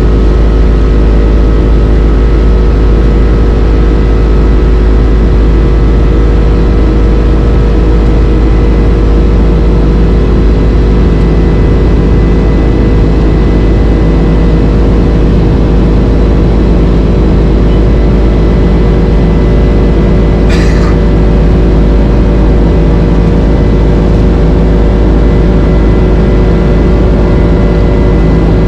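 Steady jet airliner cabin noise inside a Boeing 767-300 in flight: a loud constant rush with a deep rumble and a steady hum from its General Electric CF6 engines. One short click sounds about twenty seconds in.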